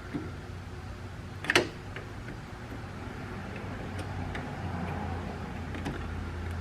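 Hand work on a steering rack boot and tie rod: a sharp clack about a second and a half in, then scattered light ticks and knocks of tools and parts, over a steady low hum.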